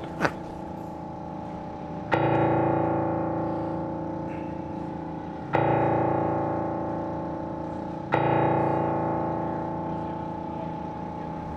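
Grand piano chord struck three times, a few seconds apart, each time left to ring and slowly fade.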